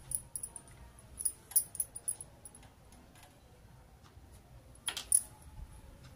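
Glass and metal bangles on a moving wrist clinking and jingling in light, scattered clicks, with a louder clink about five seconds in.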